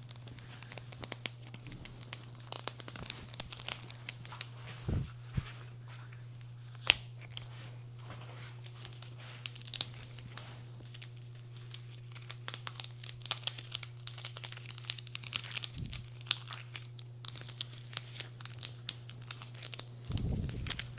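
Old handlebar tape being peeled off a bike's drop bars. The adhesive backing crackles and tears in quick, irregular bursts, with a few dull handling thumps.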